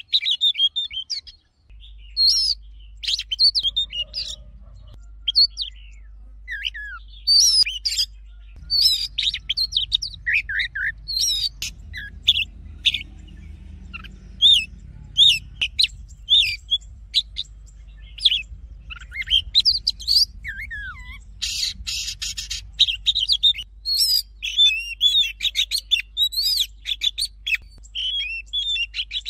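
Oriental magpie-robin singing a long, varied song of quick whistled phrases, swooping rising and falling notes and trills, with a harsh buzzy passage about three-quarters of the way through.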